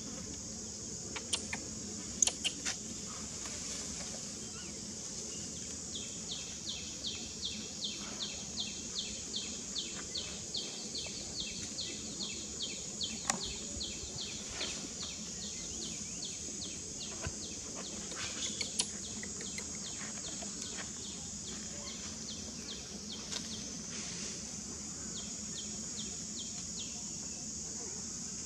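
A bird repeating a short high chirp about two or three times a second over a steady high-pitched background hiss. The chirping stops for a few seconds past the middle and starts again near the end, with a few faint scattered clicks.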